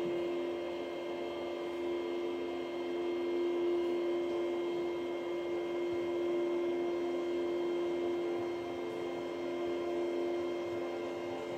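RTI Nano 30 RGB laser projector running: a steady hum with one strong tone. The noise comes from the projector's ventilator that keeps moisture off its output window.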